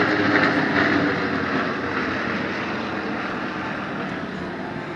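Formation of jet aircraft passing overhead: a steady engine rush that is loudest in the first second and slowly fades as the jets move away.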